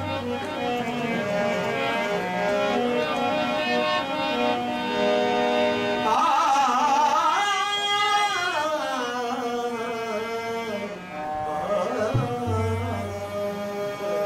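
Qawwali music: a harmonium holds steady notes, and a singer comes in about six seconds in with a long wavering phrase, then again briefly near the end.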